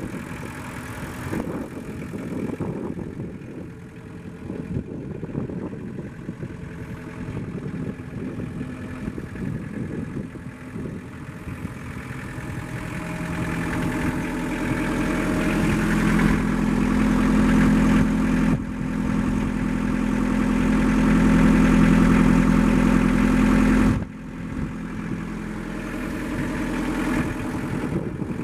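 Kubota KX040 mini excavator's diesel engine running at idle. About halfway through it grows louder with a strong, steady low hum, and drops back suddenly near the end.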